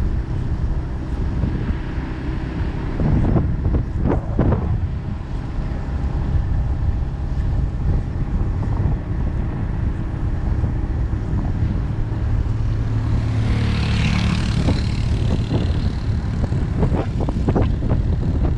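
A vehicle driving along a road: a steady low engine and road rumble with wind buffeting the microphone, and a brief higher hiss a little past the middle.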